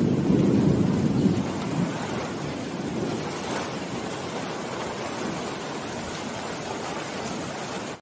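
Heavy rain falling steadily on tree foliage. A low rumble of thunder, the loudest sound here, fades away over the first couple of seconds.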